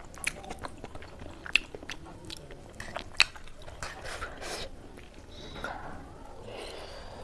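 Close-up eating sounds of spicy instant noodles: chewing with scattered sharp wet mouth clicks and a few short slurping smears.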